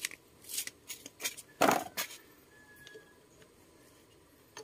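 A hand wrench clicking and scraping against metal as a bolt on a scooter engine is tightened. There are a few irregular clicks, then a louder short clatter about one and a half seconds in, and fainter handling after that.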